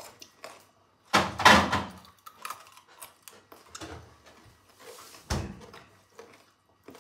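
Refrigerator door and a glass jar knocking and thudding as the jar is put away: a loud knock about a second in, small clicks, then a low thump of the door shutting about five seconds in.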